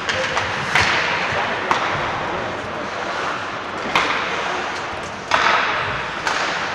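Ice hockey play in a rink: about five sharp clacks of sticks and puck, several followed by a hissing scrape of skate blades on the ice, over steady arena noise.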